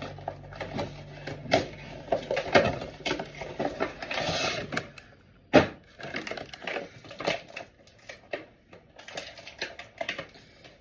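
An action figure's cardboard-and-plastic packaging being handled and opened: an irregular string of clicks, taps and crinkles, with a longer rustling burst about four seconds in and a sharp snap just after.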